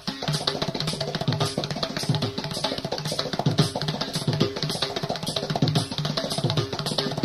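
Background music: an instrumental passage carried by a steady drum beat.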